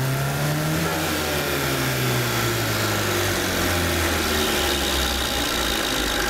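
Lada's four-cylinder petrol engine, gearbox removed and four stacked flywheels (about 28 kg) bolted to the crank, reaching its top revs about a second in and then slowly winding down. The heavy flywheel mass makes the revs fall very sluggishly.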